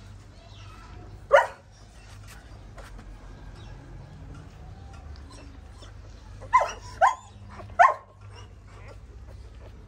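A dog barking: one short bark about a second in, then three more close together a few seconds later.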